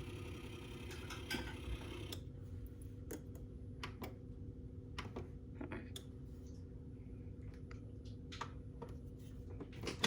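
Single-serve coffee maker switched on and warming up: a faint steady hum with scattered light clicks and ticks.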